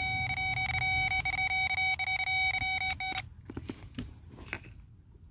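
Continuous electronic beep from a multimeter's continuity tester on the brake-light switch circuit, held steady while the switch is closed and cutting off suddenly about three seconds in. A few faint clicks follow.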